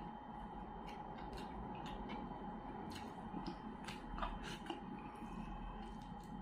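Eating a whole fried fish by hand: fingers picking the crisp flesh off the bones, then chewing, heard as scattered small clicks and crackles at an uneven pace over a faint steady hum.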